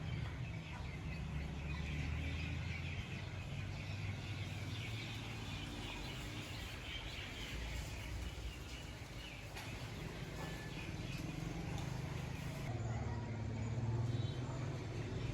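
Small birds chirping and twittering over a steady low background rumble.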